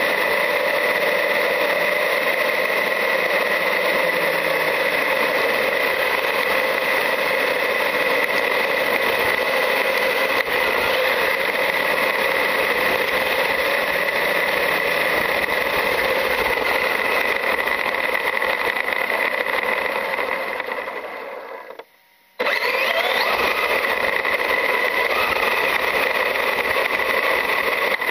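Traxxas UDR RC desert truck's brushless electric drivetrain running, heard from a camera mounted on the truck: a steady motor and gear whine over tyre and rumble noise as it drives across gravel and grass. About twenty seconds in the sound fades and drops almost out for half a second, then cuts back in with short rising whines as the truck speeds up again.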